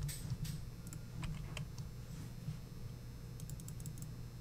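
A few scattered light clicks of computer keys, irregularly spaced.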